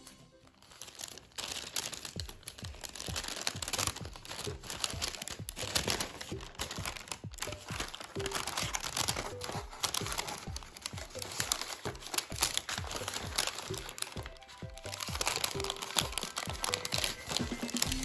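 A sheet of origami paper being handled, folded and creased, with dense, irregular crinkling and crackling, over background music.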